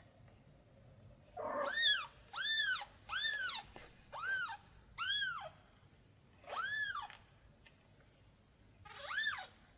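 Newborn kitten crying out for its mother cat: seven high, thin mews, each rising and then falling in pitch. Five come in quick succession, then two more spaced out after a pause.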